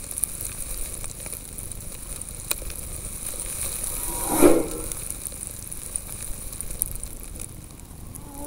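A racing snowmobile passes close by about four seconds in, its engine swelling briefly and then fading, over a steady hiss with scattered faint ticks.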